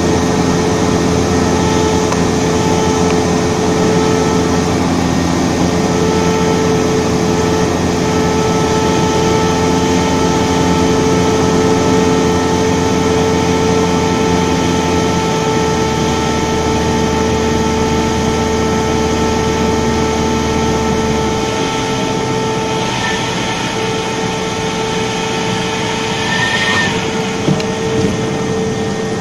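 Cessna 172D's piston engine and propeller heard from inside the cockpit, running steadily at low power on landing; the low drone drops away in two steps, about halfway through and again a few seconds later, as power comes off. A couple of brief sharp chirps near the end as the wheels meet the runway.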